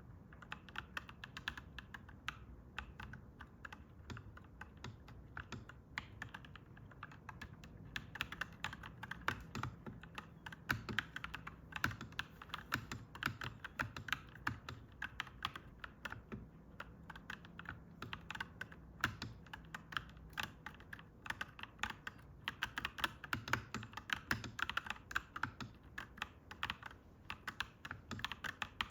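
Typing on a clacky mechanical keyboard: a fast, uneven stream of keystroke clacks, a little sparser in the first several seconds, over a faint steady low hum.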